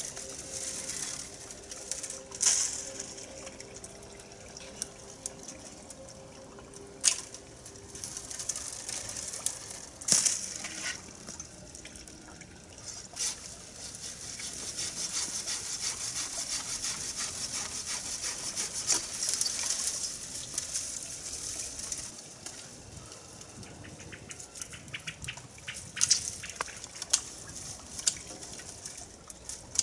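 Pruning a Japanese maple: scattered sharp snaps and cracks as branches are cut, with a scratchy stretch of several seconds around the middle.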